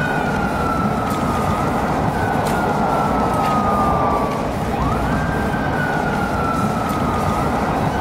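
Police motorcycle siren wailing: its pitch sweeps up quickly, then sinks slowly over several seconds, and the cycle starts again about halfway through. Steady traffic noise runs underneath.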